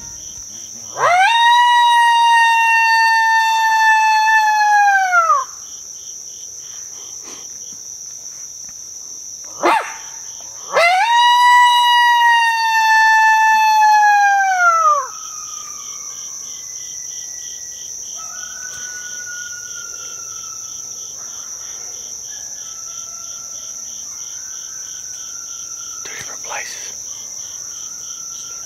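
Mouth-blown coyote howler call giving two long howls, each one rising sharply, held for about four seconds and dropping away at the end, with a short rising note between them. It is being used to call coyotes in. Crickets and insects buzz steadily throughout.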